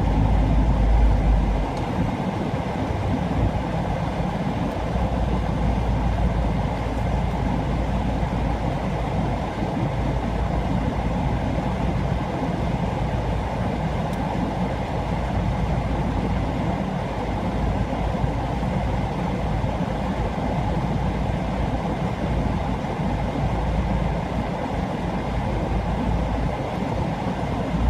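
Car running with its air conditioner switched off: a steady low rumble with a fainter hiss above it, a little louder for the first two seconds.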